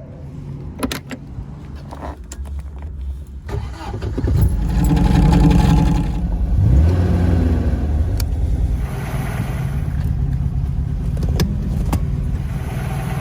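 1969 Shelby GT500's 428 Cobra Jet V8 running and pulling away, building to its loudest about four seconds in with the pitch rising. The pitch dips briefly near seven seconds, then the engine runs steadily.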